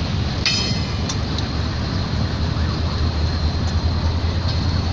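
GE GEU40 diesel-electric locomotive rolling slowly past at close range: a steady, deep engine rumble with running noise. About half a second in comes a brief metallic squeal.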